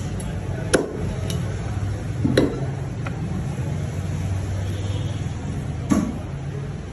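Heavy cleaver chopping a country chicken on a round wooden block: three sharp chops a few seconds apart, with a couple of lighter knocks between, over a steady low background hum.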